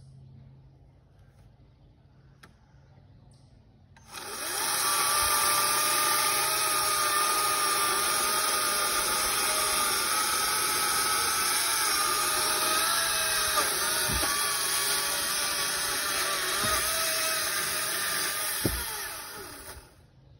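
Battery-powered Bad Boy electric chainsaw starting about four seconds in and running steadily with a high motor whine while cutting firewood, its pitch wavering a little under load, then winding down near the end. A few dull knocks sound in the last few seconds of the cut.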